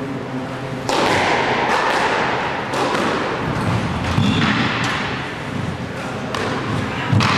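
Squash ball being hit by rackets and striking the court walls: sharp, echoing knocks at uneven spacing, less than a second to about a second apart.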